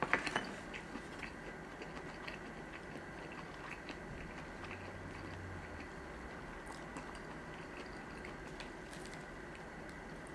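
A person chewing sushi at close range with soft, wet mouth clicks. A quick cluster of louder clicks comes right at the start.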